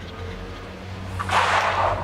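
A vinyl click-lock flooring plank is handled and slid across the floor into place: a light click about a second in, then a short scraping swish.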